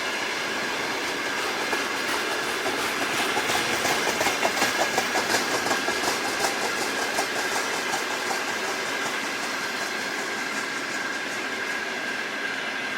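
A train of empty freight wagons rolling past, its wheels clattering over rail joints in an even clickety-clack of about three beats a second that is loudest in the middle. A steady high-pitched whine runs underneath the rolling noise.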